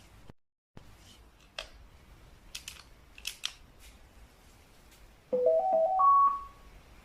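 Samsung CW-21Z503N television's power jingle: a short rising run of four electronic beeps about five seconds in, after a few faint clicks.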